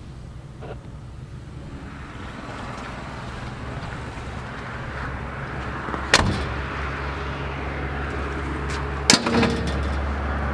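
Vehicle engine idling with a low, steady hum that grows louder, and two sharp knocks of a car door about six and nine seconds in.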